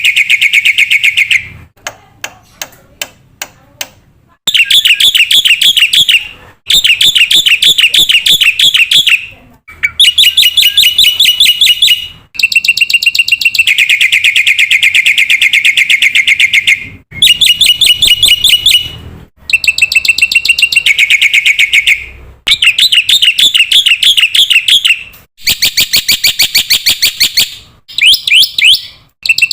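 Black-winged myna (jalak putih) calling in loud, rapid, repeated chatter, in bursts of two to three seconds with short breaks between them. About two seconds in, a run of six sharp clicks takes the place of the chatter for a moment.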